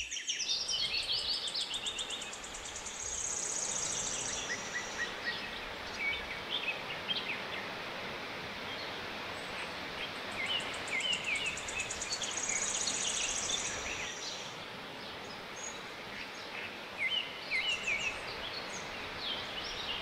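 Forest ambience: birds chirping and calling over a steady rushing hiss, with a high, rapidly pulsing insect trill that comes in two spells of about four seconds each.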